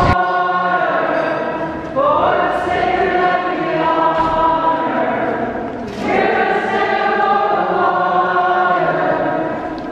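Group of voices singing together in long held notes, a new phrase starting about every four seconds.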